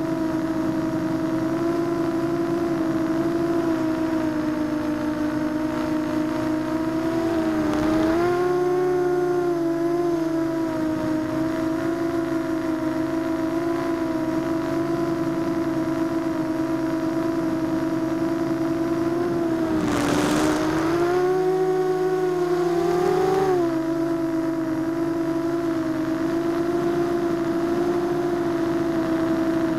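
ZMR250 racing quadcopter's four motors and propellers whining steadily as heard from the onboard camera. The pitch dips and swells twice with throttle changes, and a short rush of noise comes about two-thirds of the way through.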